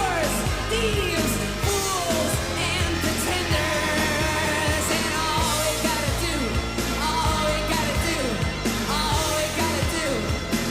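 An 1980s new wave dance track with a sung vocal over a steady beat.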